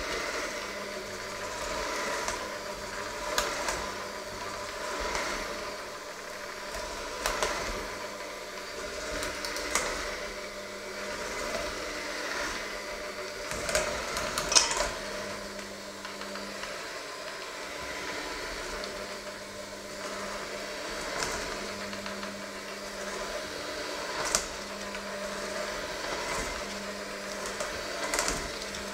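Electric hand mixer running, its beaters churning a thick mixture in a stainless steel bowl; the sound swells and fades as the beaters move around the bowl, with occasional sharp knocks of the beaters against the metal, the loudest about halfway through.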